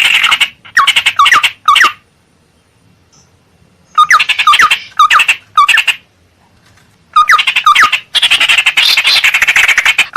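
Ciung air (tit-babbler) calling in bursts of rapid chattering notes with quick downward-sweeping whistles, in short groups broken by pauses, then a longer unbroken chattering run near the end. It is a lure call for drawing wild birds of its kind in.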